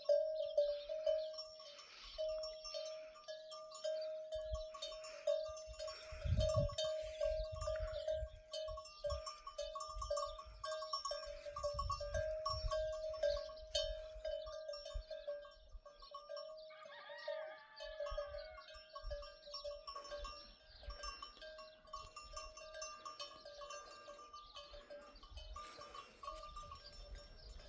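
A bell hung on grazing livestock clanging over and over as the animals move, with a single sheep or goat bleat about seventeen seconds in.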